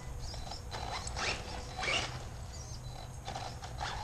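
Radio-controlled truck driving and jumping, its small motor and gears whirring, with several short scrapes and clatters; the loudest comes about two seconds in.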